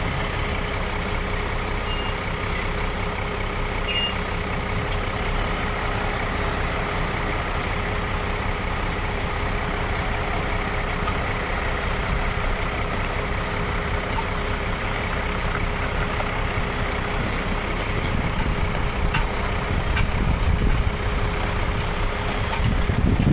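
Heavy truck or machinery engine running steadily, a continuous loud mechanical drone.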